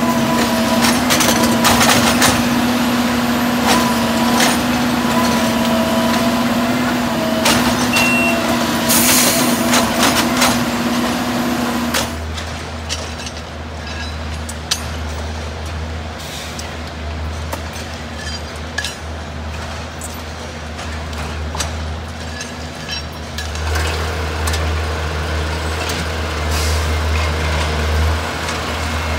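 Diesel rail maintenance machines running during tie replacement: a steady engine and hydraulic drone with sharp metallic clanks and hisses, changing about twelve seconds in to a lower, steadier engine drone with occasional knocks.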